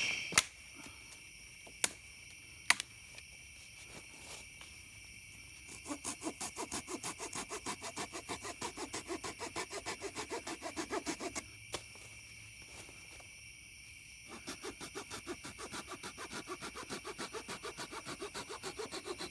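Opinel folding saw cutting through a dead pine branch by hand, in two runs of quick, even strokes with a pause of about three seconds between them.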